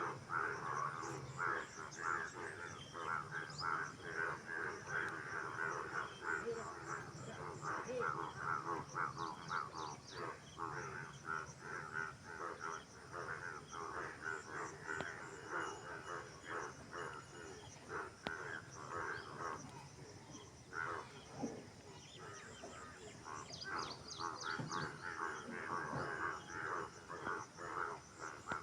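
A chorus of frogs croaking: rapid, harsh pulsed calls from many animals, overlapping continuously, thinning out about twenty seconds in before picking up again near the end.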